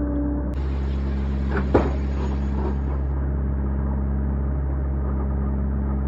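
Excavator's diesel engine running steadily, with a single sharp knock about two seconds in.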